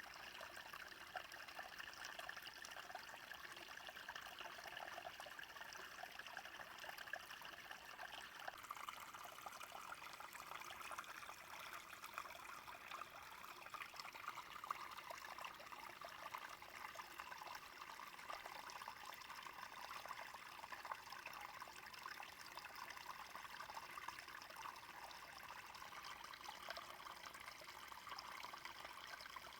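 A small brook flowing steadily, a faint, even trickling of running water whose tone shifts slightly about eight seconds in.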